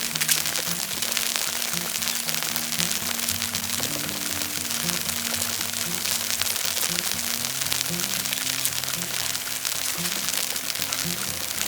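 Background music: a slow line of low held notes, with a steady fine crackling hiss over it.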